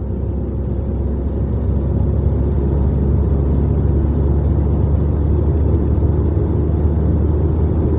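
Road and engine noise inside a moving car's cabin: a steady low rumble that grows louder over the first couple of seconds and then holds steady.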